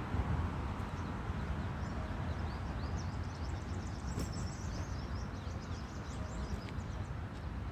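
Small birds chirping in quick runs of short high calls over a steady low background rumble.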